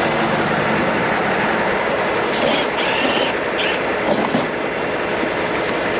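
Loud, steady rumbling and clattering of a large vehicle, with brief bursts of hiss about two and a half and three and a half seconds in.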